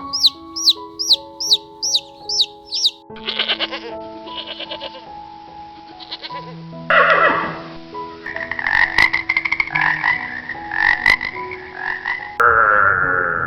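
Background music under a series of animal calls. For the first three seconds there are quick, evenly spaced high chirps, then about four seconds of rattling, croak-like calls, then other calls.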